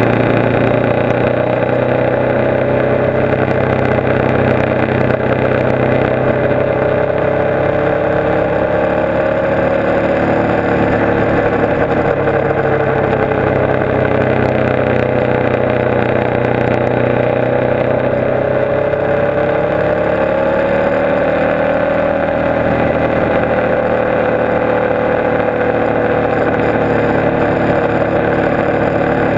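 Motorcycle engine running steadily at cruising speed, heard from the rider's own bike. Its pitch sags gradually through the middle and rises again after about twenty seconds, over a steady rush of wind and road noise.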